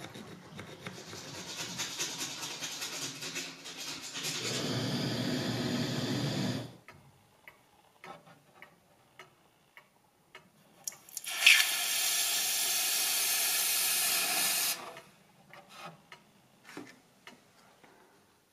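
Two spells of steady hissing rush from work in a metalworking shop, with small clicks and taps between them. The first builds up over a few seconds and gets heavier in its last two seconds. The second starts and stops abruptly and lasts about four seconds.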